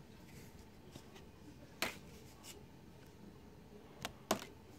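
A few short, sharp clicks or taps against quiet room tone: one about two seconds in, then two close together near the end.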